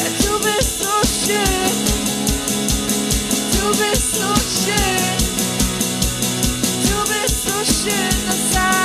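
Band music with a drum kit keeping a steady beat under a melody line that bends in pitch.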